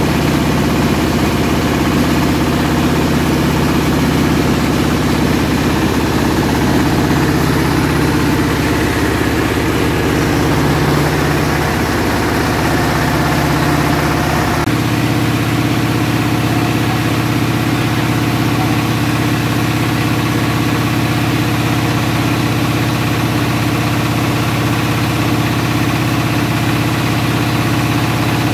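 Engine-driven rice milling machine running steadily with a continuous drone. About 15 seconds in, the tone shifts abruptly to a different steady machine drone.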